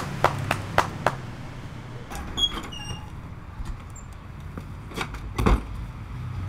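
Door sounds: a few sharp knocks in the first second, a short squeak falling in pitch, then two heavier thumps about five seconds in, the second the loudest.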